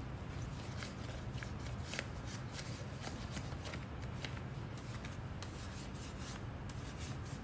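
Gloved hands rubbing a cloth rag over a wooden box to spread varnishing oil: scattered quick rustles and light scrapes, over a steady low hum.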